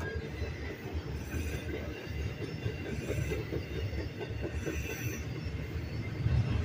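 Union Pacific double-stack intermodal train passing close by: the steel wheels of the well cars rolling on the rails in a steady low rumble.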